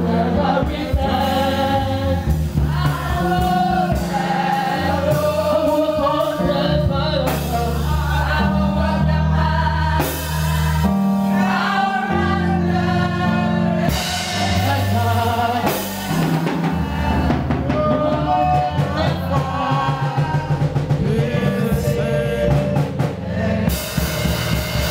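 Gospel worship music: a choir or congregation singing a slow refrain over bass and drums.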